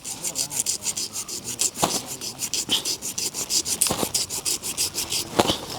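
Knife rapidly scraping and paring the skin off a large fish, about nine quick rasping strokes a second, with three sharper knocks along the way.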